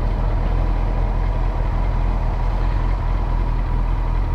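Vehicle engine idling with a steady, even low pitch.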